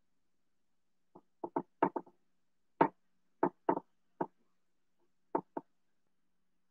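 Dry-erase marker writing on a whiteboard: about a dozen short, sharp taps and strokes as letters are written, in quick clusters with brief pauses between them.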